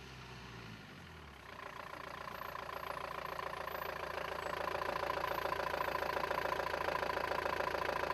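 Iveco turbo-diesel engine of a Magnum VAV off-roader running as the vehicle drives up, growing louder from about a second and a half in and then holding steady.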